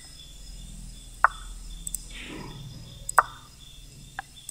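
Two sharp piece-move clicks from an online chess board, about two seconds apart, as Black and then White each make a move, with a fainter click near the end. Behind them runs a faint high chirp that repeats at an even pace.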